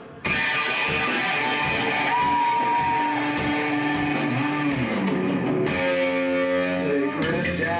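Live rock band playing: electric guitar comes in loud just after the start, with long held notes, one note bending down in the middle, and a sustained chord near the end.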